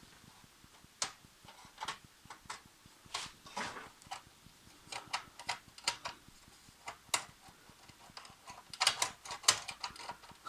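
Irregular light clicks and taps of plastic and sheet-metal printer parts being handled and pried during disassembly of an HP LaserJet M104a, with a quicker run of clicks near the end.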